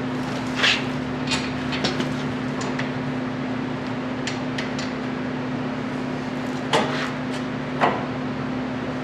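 Scattered metal clinks and knocks of hand tools against the brake caliper and its bolts as the caliper is fitted back on, a few close together about a second in and two louder ones near seven and eight seconds in, over a steady low hum.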